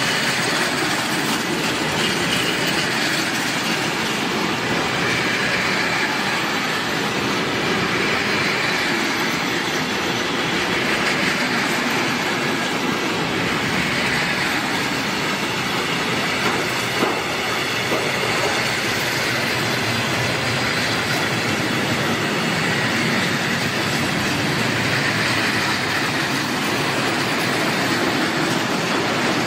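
Freight wagons (sliding-wall box wagons, then gas tank wagons) rolling past at close range: a steady rumble of steel wheels on rail, with a faint high wheel squeal that swells and fades several times and a single sharper knock a little past halfway.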